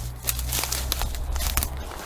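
Footsteps crunching and crackling irregularly over dry ground cover, with a low steady rumble underneath.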